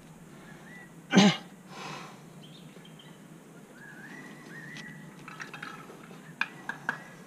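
A climber's sharp, forceful exhale or grunt about a second in, the loudest sound here, followed by a softer breath. Birds chirp in the middle, and a few sharp clicks come near the end.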